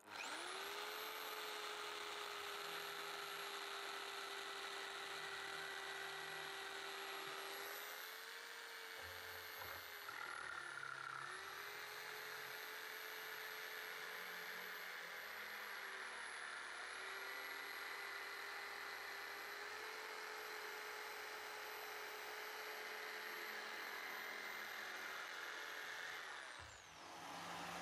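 Electric jigsaw starting up and cutting through a softwood board with a steady whine. Its pitch sags a few times as the blade bites into the wood, and falls away near the end.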